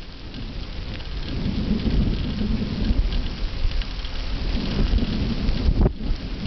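Wind buffeting the microphone in an uneven low rumble over a steady hiss of moving fast along a wet road.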